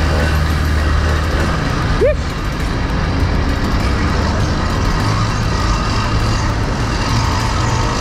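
80cc two-stroke motorized-bicycle engine running steadily under way, with wind rushing past. Its low drone steps up in pitch about halfway through, and a short rising squeak comes about two seconds in.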